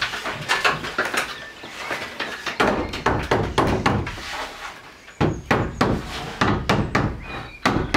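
Irregular knocks and thuds on timber as the roof of a wooden shed is worked on, several blows a second in places.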